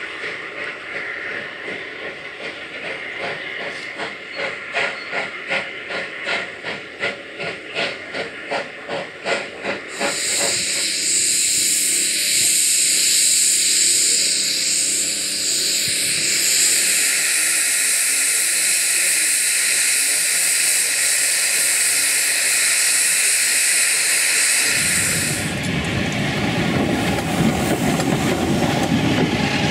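Small steam tank locomotive working a train of wagons, its exhaust beating about twice a second. About ten seconds in, a loud steady hiss of steam from another tank engine's open cylinder drain cocks takes over and cuts off abruptly about twenty-five seconds in, giving way to a lower rumble.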